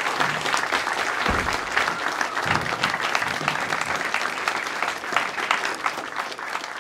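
Audience applauding steadily after a live performance.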